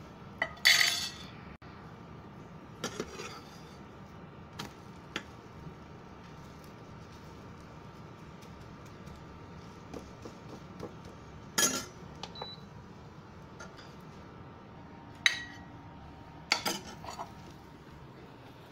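A metal spoon clinking and scraping against a non-stick frying pan as an omelette is pressed, turned and lifted out: scattered sharp clinks with pauses between them, the loudest about a second in.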